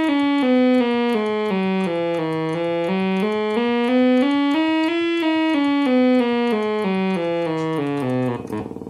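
ARP Quadra lead synthesizer section sounding single notes that step down and back up the scale, about three a second, each one holding on into the next without dying away: the VCA never closes, so the notes sustain forever.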